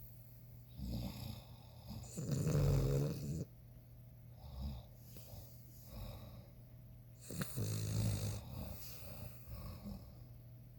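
Cavalier King Charles Spaniel snoring in deep sleep. The low buzzing snores come every few seconds, the longest and loudest about two seconds in and another at about seven and a half seconds, with fainter ones between.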